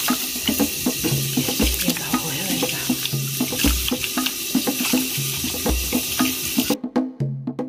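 Running water, a steady hiss like water poured or running from a tap, over background music with a low bass note about every two seconds. The water sound cuts out suddenly near the end while the music continues.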